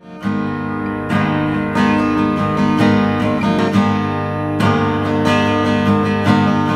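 Steel-string acoustic guitar strummed in chords, heard first with grimy, uncleaned strings that sound a bit muffled and dull. Partway through it switches to the same guitar after the strings have been cleaned with Fastfret string cleaner, which sounds clearer and more ringing.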